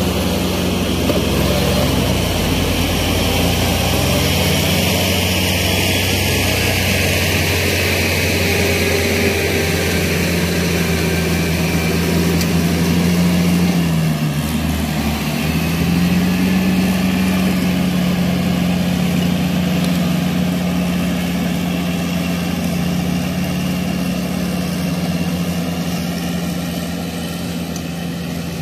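Kubota L5018 tractor's diesel engine running steadily as it pulls a rotary tiller through a wet rice paddy. The engine note dips briefly about halfway through, then steadies again and grows fainter near the end.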